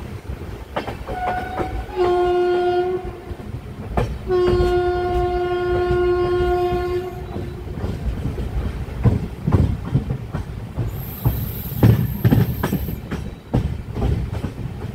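Train horn sounding a short blast, then a long one of about three seconds, heard from a coach of a departing express. After it comes a run of wheel clicks and clatter over rail joints and points as the train gathers speed, with a faint high whine near the end.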